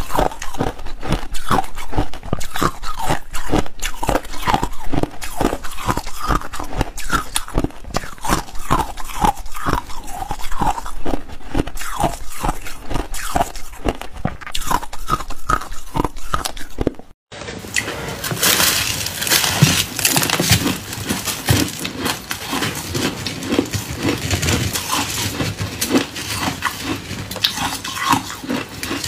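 Ice being bitten and chewed close to the microphone: quick, irregular crunches of hard ice. After a sudden cut about 17 seconds in, denser, hissier crunching of a slab of frozen shaved ice.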